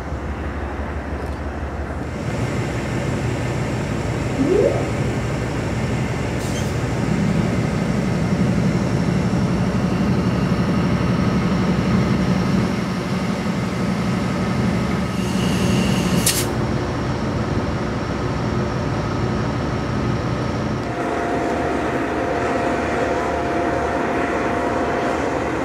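Steady low drone of an idling diesel locomotive, with a brief high squeak about two-thirds of the way through.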